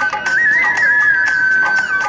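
Background music: a high melody line that holds long notes and bends between them, over a light percussion beat.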